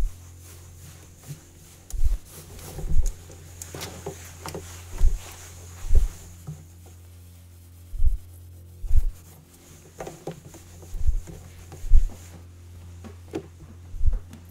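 A towel wiping a stainless steel counter in scratchy strokes. Over it runs a steady low hum, and deep thuds come about once a second, several in pairs; the thuds are the loudest sound.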